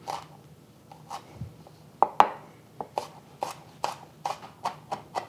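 Kitchen knife chopping garlic cloves on a wooden cutting board: a few scattered knife taps, then steady chopping strikes about three a second from about two seconds in.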